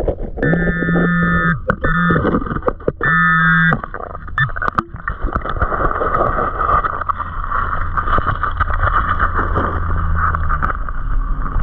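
A handheld metal-detecting pinpointer, recorded underwater, sounds its buzzing alert tone three times in the first four seconds, signalling a metal target under a rock. Then a gloved hand digs and fans gravel and sediment underwater, a steady rushing with scattered scrapes and clicks.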